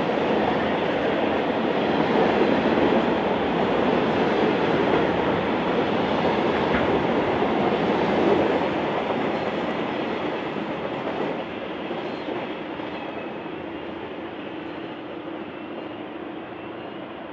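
Freight train of empty intermodal flat wagons rolling past, steady wheel-on-rail noise that begins fading about eight seconds in and keeps dying away as the train draws off.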